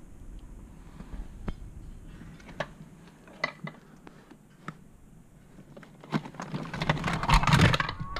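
Scattered light taps and clicks, then a louder rustling, scraping handling noise from about six and a half to eight seconds in.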